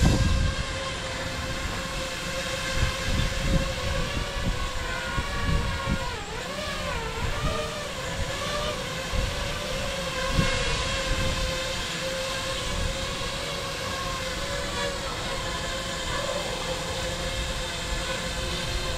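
FPV quadcopter hovering in GPS position hold, its motors and propellers giving a steady whine. The pitch wavers and dips briefly about six seconds in as the motors correct.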